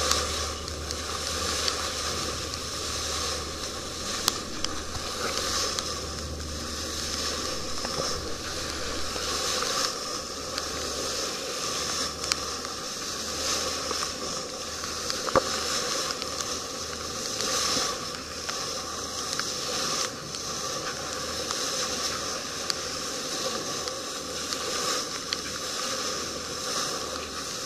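A boat under way: water rushing and splashing along the hull, swelling and fading, over a low steady hum, with a few sharp knocks.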